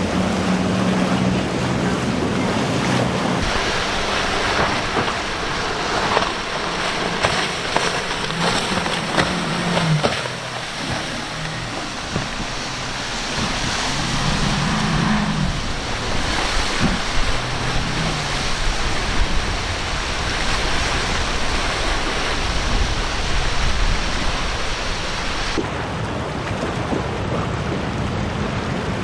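Boat engines droning as powerboats run past, coming and going, over the wash of waves and wake and steady wind noise on the microphone.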